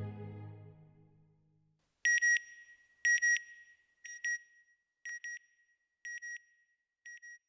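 Soft ambient music fading out, followed by a high electronic double beep repeated once a second, six times, each fainter than the last, like an echoing signal sound effect.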